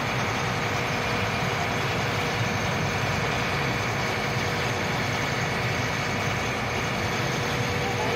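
Steady drone of a wooden passenger launch's engine running under way, mixed with an even hiss of water and wind.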